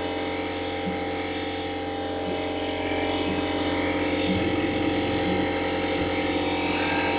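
Schaublin 110 CNC lathe running under test: a steady electric hum and whine made of several steady tones from its motors and drives, with faint brief blips about once a second.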